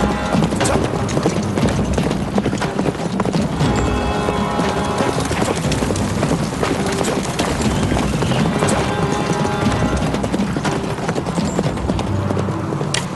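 Horse galloping, rapid hoofbeats throughout, under a film music score with sustained notes.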